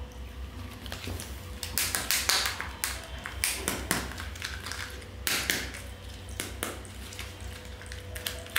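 Crinkling and crackling of a Kinder Joy egg's wrapper as fingers handle and peel it, in short irregular crackles.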